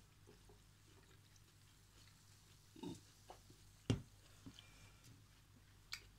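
A person drinking cola from a glass: a soft gulp about three seconds in, a sharp knock of the glass about four seconds in, and a small click near the end.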